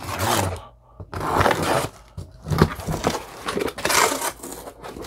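Scissors slicing through packing tape along the seam of a cardboard box, then the cardboard flaps being pulled open in a series of scraping, rustling bursts.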